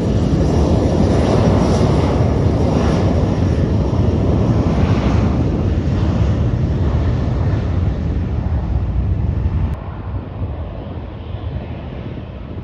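Twin Rolls-Royce AE 3007 turbofan engines of an Embraer ERJ-135LR regional jet at takeoff power. The jet noise is a loud, steady roar with a wavering hiss, and it drops abruptly in level about ten seconds in.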